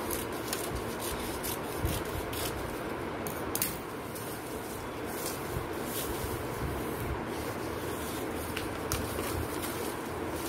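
Scissors snipping a series of short cuts into folded newspaper, the snips coming in an irregular run over the first few seconds, then the newspaper rustling as it is handled, over a steady background hiss.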